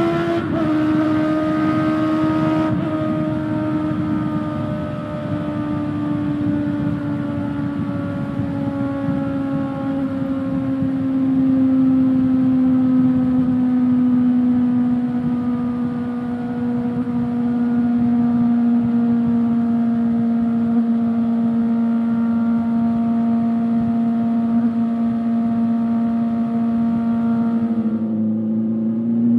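Honda CB400SF inline-four engine with a Yoshimura slip-on exhaust, running at high revs under way. Its note sinks slowly over the first half and then holds steady, with a sudden change in the sound near the end.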